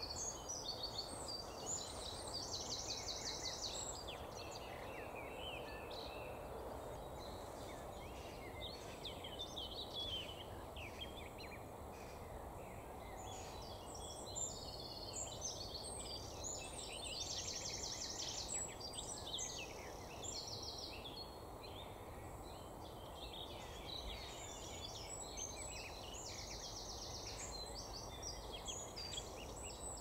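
Several songbirds singing and calling, with short chirps and rapid trills throughout, over a steady low background rush.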